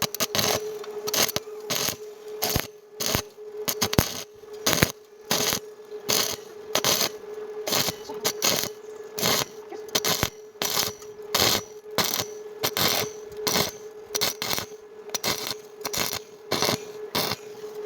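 Welding arc struck in short repeated bursts, about two a second, as in stitch welding of thin metal, over a steady hum.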